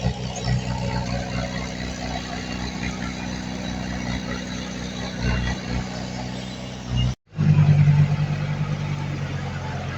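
Heavy diesel engine of earthmoving machinery running with a steady low drone. The sound breaks off briefly about seven seconds in and returns louder.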